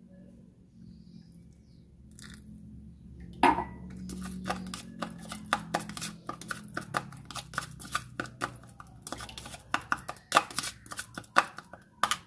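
Metal spoon scraping and clicking against a plastic cup as it stirs a thick paste of hand-feeding food mixed with a little water. The rapid, irregular scrapes start about three and a half seconds in, over a low steady hum.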